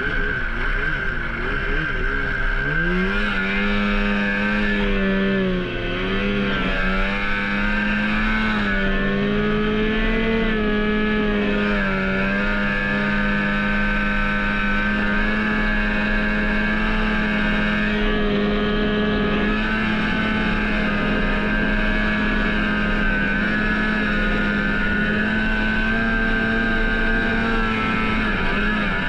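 Snowmobile engine running hard at high revs. The revs climb about three seconds in, dip briefly a couple of times, then hold nearly steady.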